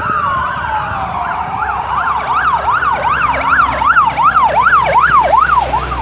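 Fire engine's siren passing close. It starts with a slow falling wail, then switches about a second and a half in to a fast yelp, sweeping up and down about two to three times a second.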